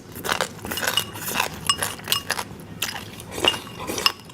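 Repeated sharp clinks with brief ringing, of a utensil striking a dish, amid eating of a crunchy snack.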